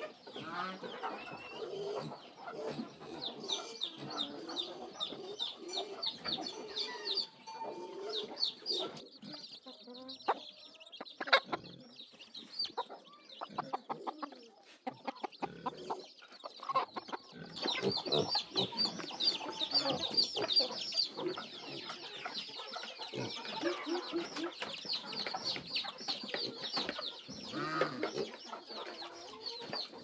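Chicks peeping rapidly and continuously in high, short chirps, with a hen clucking beneath them. A single sharp tap sounds about a third of the way through.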